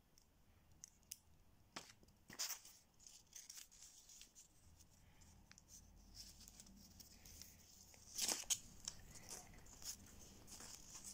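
Strips of coloured paper being handled and folded over each other into an origami paper spring: faint scattered rustles and small taps, louder twice, about two seconds in and again about eight seconds in.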